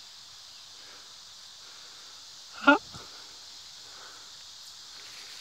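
Quiet, steady outdoor background hiss, broken about two and a half seconds in by one short, loud, rising vocal sound.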